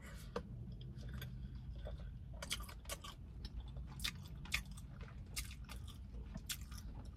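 A person chewing and biting food close to the microphone, with irregular soft clicks and crunches from the mouth.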